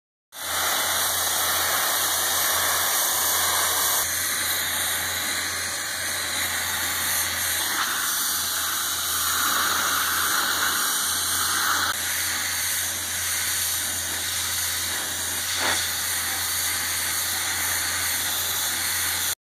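Pressure washer wand with a wet sandblasting attachment spraying a high-pressure stream of water and sand, a steady loud hiss with a low hum underneath. The tone shifts slightly a couple of times and cuts off suddenly near the end.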